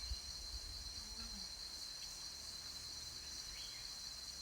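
Cicadas droning steadily in a continuous high-pitched chorus.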